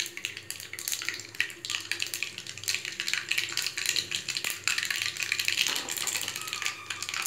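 Mustard seeds spluttering in hot oil: a dense, steady crackle of quick pops. It is the sign that the tempering oil is hot enough for the next spices.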